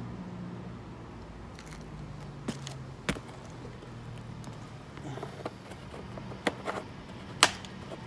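Scattered light clicks and knocks from handling a plastic oil jug, the loudest one near the end, over a low steady hum.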